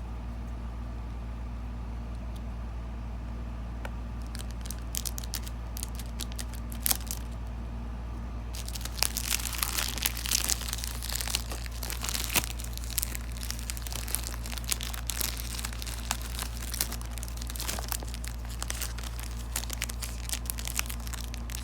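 Plastic shrink-wrap on a DVD case crinkling and tearing as it is pulled off by hand, sparse crackles at first, then dense, continuous crinkling from about eight seconds in, over a steady low hum.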